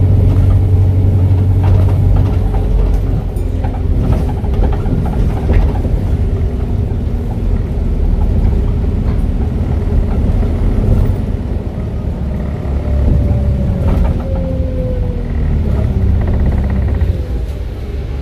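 ADL Enviro 400 double-decker bus, converted from hybrid to diesel, running with a steady low engine drone that eases a little after the first few seconds. About two-thirds of the way through, a thin whistle slides down in pitch over a couple of seconds: the turbo winding down.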